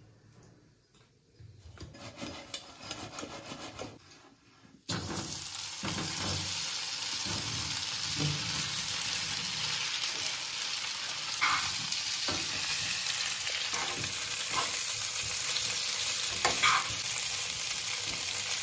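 Chunks of boiled taro sizzling in a hot frying pan: a steady hiss that starts suddenly about five seconds in, with a spatula knocking and scraping against the pan as the pieces are stirred. Before that, a few light clicks and rustles of handling.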